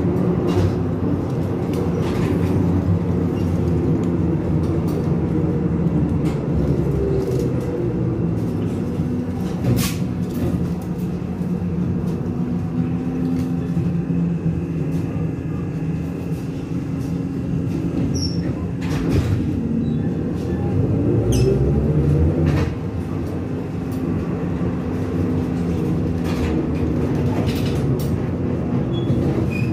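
Cabin noise of a BTZ-5276.04 trolleybus in motion: the electric traction motor's hum with tyre and road noise and body rattles, and a few sharp knocks. About 20 seconds in the motor's pitch rises as it speeds up, then drops off suddenly.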